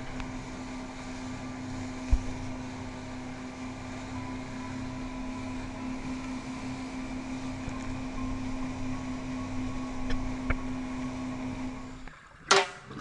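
Motorboat engine running steadily at speed, a constant hum over water and wind noise. It drops out about twelve seconds in, and music starts near the end.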